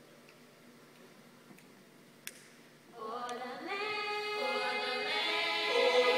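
An a cappella vocal ensemble: after about three seconds of near silence the voices come in together on a held chord in harmony, growing louder toward the end.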